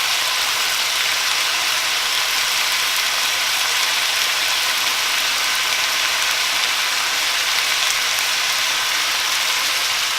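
Onions, carrots and green beans sizzling steadily in a frying pan as a stir fry cooks.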